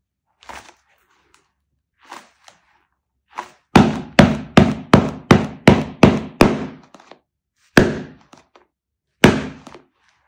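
A quick run of about eight sharp thwacks, close to three a second, over about three seconds, then two single strikes about a second and a half apart.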